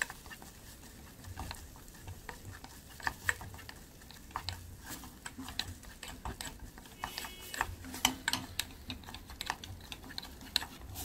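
Wooden spoon stirring and scraping a thick tomato-ketchup filling around a small stainless steel saucepan, with many irregular light clicks of spoon on metal over a soft sizzle. The filling is being fried down until no moisture is left and it turns to a stiff paste.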